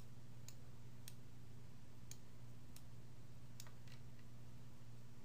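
About six faint, sharp computer mouse clicks at irregular intervals, over a steady low electrical hum.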